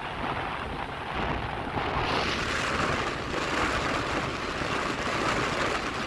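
Strong wind blowing across the microphone over surf breaking on the beach, a steady rumble and hiss that grows louder about two seconds in.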